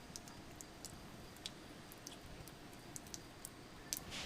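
Faint, irregular small clicks and ticks, about a dozen scattered through, with a slightly louder pair near the end, over a low steady background hiss.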